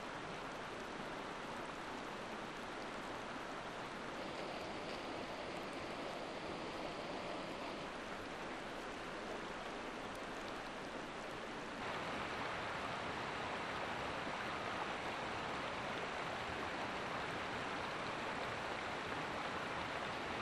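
Mountain river rushing over rocks: a steady rush of flowing water that steps up in level about twelve seconds in.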